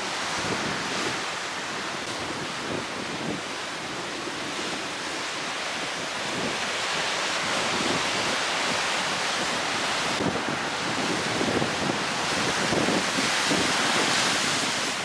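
Ocean surf breaking against rock ledges, with wind blowing across the microphone. A steady wash of noise that grows a little louder near the end.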